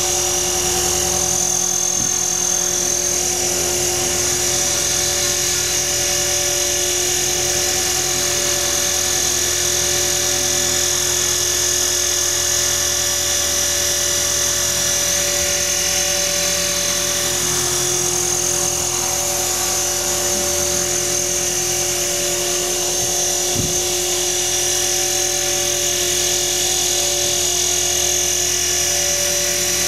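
Align T-Rex 450 XL electric radio-controlled helicopter hovering: a steady high whine from the motor and gears over the hum of the spinning rotor blades.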